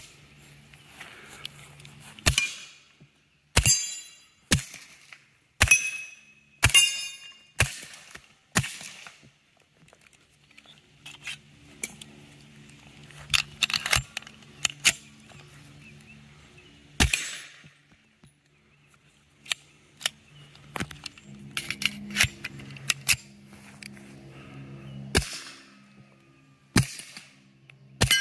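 A string of suppressed .45 ACP shots from a Colt 1911 fitted with a Silencerco Octane 45 suppressor, unevenly spaced with short pauses. Many shots are followed by the clang and high ring of steel plate targets being hit, which is louder than the shot itself.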